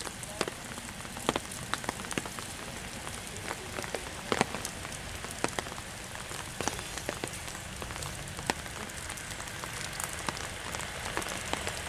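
Light rain pattering: a steady hiss with scattered, irregular sharp drop ticks.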